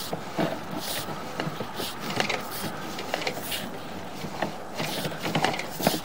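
Sewer inspection camera push cable being fed quickly into a PVC sewer line, with irregular clicks, knocks and scrapes as the cable and reel are handled.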